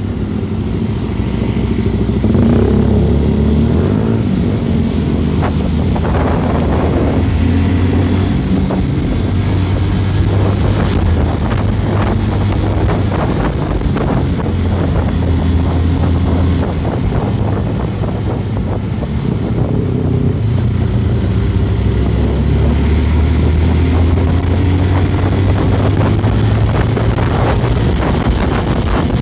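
Motorcycle engine running on the move, a low drone that rises and falls in pitch as the speed changes.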